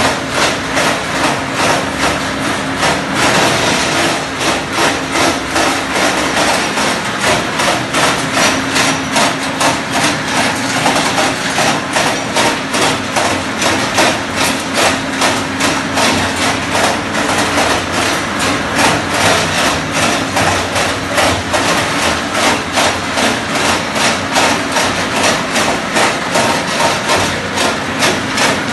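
Areca nut peeling machine running: a steady motor hum under continuous knocking and rattling that pulses about twice a second as the dry nuts are beaten and dehusked.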